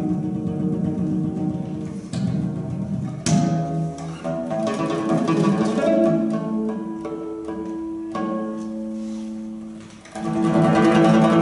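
Bass domra playing a run of plucked notes with a Russian folk-instrument orchestra. The music grows much louder and fuller about ten seconds in.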